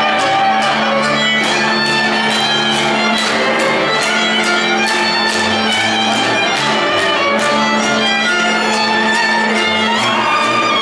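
Hungarian folk dance music led by a fiddle over string accompaniment, with a held low note and a steady beat of sharp strokes a little over two a second.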